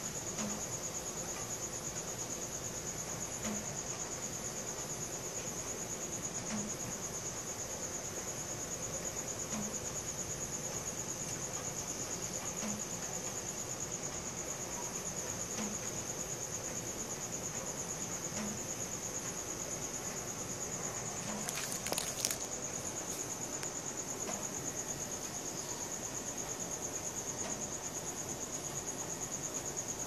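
Crickets trilling steadily in one unbroken high-pitched chorus, with a short cluster of clicks about three-quarters of the way through.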